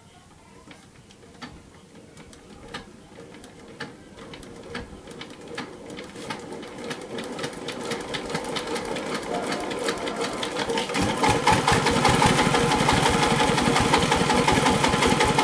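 Dompeng diesel engine of a generator starting up: slow, faint firing knocks that speed up and grow louder over about ten seconds, then run fast and steady.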